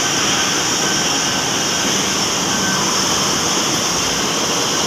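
Engine lathe running and cutting metal: a loud, steady machine noise with a high hiss, and a few short faint whistle tones.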